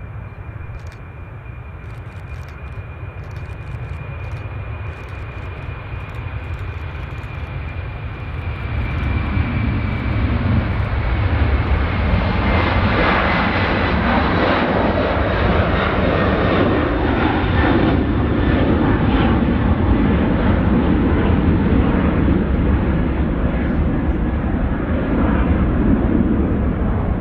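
Boeing 747-400 jet engines growing louder as the aircraft comes close, with a thin high whine that drops slightly in pitch about ten seconds in, then a loud steady jet rumble.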